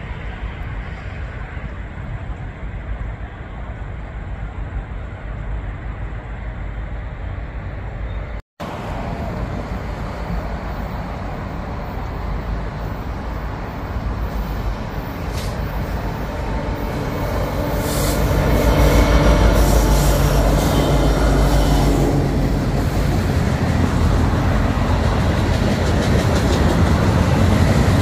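Diesel freight train approaching and passing: a steady low rumble of the locomotives, cut by a brief gap in the sound about 8 seconds in. It then grows louder from about 17 seconds in as the freight cars roll by, wheels clicking and rumbling over the rails.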